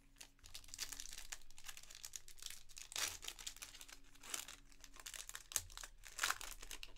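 A foil Panini Prizm Soccer trading-card pack crinkling as it is handled and bent, then torn open, with several sharp ripping crackles in the second half.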